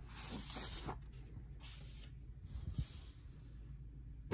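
Faint rustling of sheets of copy paper being handled, with one light tap near three seconds in.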